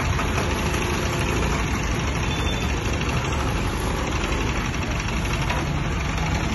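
10 kVA diesel generator set running steadily inside its soundproof canopy, heard with the canopy door open.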